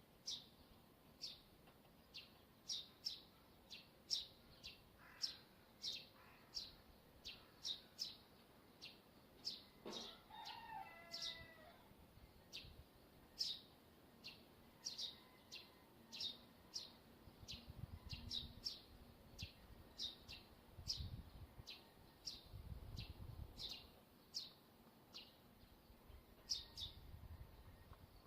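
Faint, high, short squeaks repeating about one and a half times a second from the wire on a TV antenna being worked by the wind. A brief lower call is heard about ten seconds in, and low rumbles come and go in the second half.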